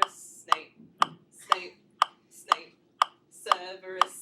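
Steady ticking: sharp, evenly spaced ticks, about two a second, with faint voices between them.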